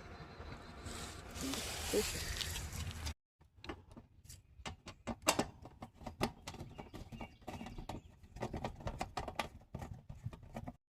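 Steady background noise that cuts off abruptly about three seconds in, followed by a run of irregular sharp clicks and taps, like small parts and tools being handled during a repair.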